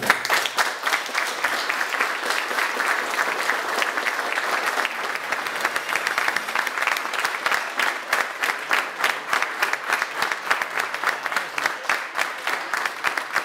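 An audience breaks into applause all at once and keeps clapping steadily. Near the end the separate claps stand out more.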